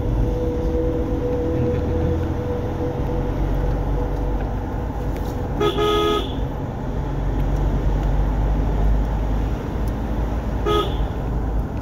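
Mahindra Scorpio SUV driving, heard from inside the cabin as a steady low engine and road rumble. A car horn toots twice: a honk of about half a second around the middle, and a shorter tap near the end.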